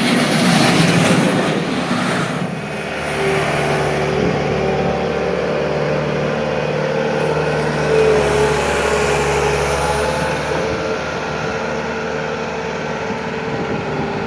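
Bobcat S220 skid steer's Kubota diesel engine running as the machine is operated, its pitch shifting a few times. Louder, with more hiss, for the first two seconds or so.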